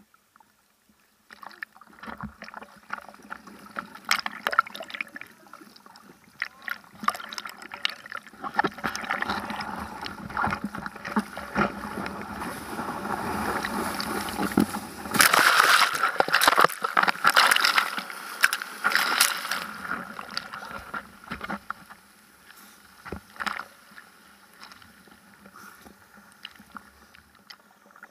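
Seawater sloshing and splashing around a bodyboard and its board-mounted camera, with scattered knocks and clicks. It builds to its loudest a little past the middle, then settles back down.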